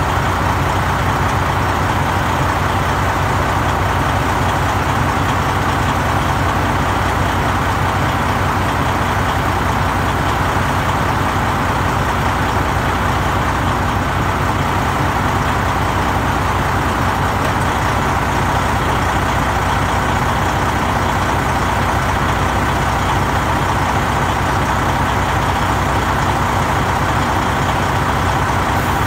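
Heavy diesel truck engine idling steadily, a constant low rumble with no change in speed.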